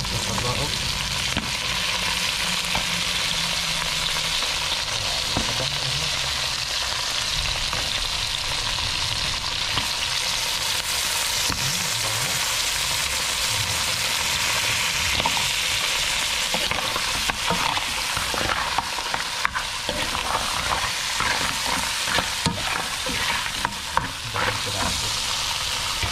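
Mud crab frying in margarine and garlic in a hot pan: a steady, loud sizzle, with scattered clicks and knocks in the second half.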